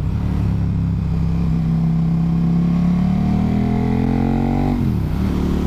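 KTM Super Duke's V-twin engine pulling under throttle, its pitch rising steadily as the bike accelerates. Near the end the pitch drops sharply and picks up again at a gear change.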